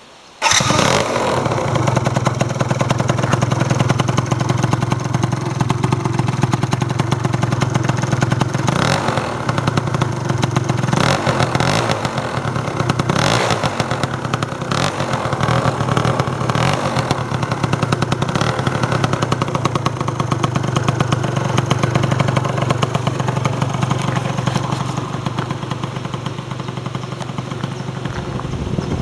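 MBK Nitro 100 scooter's two-stroke engine running through a Leovince ZX handmade aftermarket exhaust, mostly idling steadily, with a string of short throttle blips through the middle.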